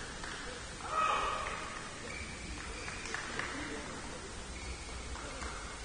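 A short loud shout about a second in, echoing in a large sports hall, followed by a few fainter calls over the hall's steady background hiss.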